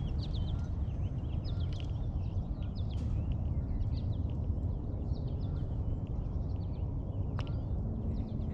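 Small birds chirping, many short calls one after another, over a steady low rumble.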